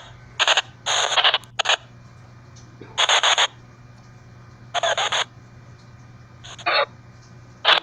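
Short bursts of hissing white noise from an EVP white-noise audio session, six or so hisses of under half a second each, cut off sharply, over a steady low electrical hum.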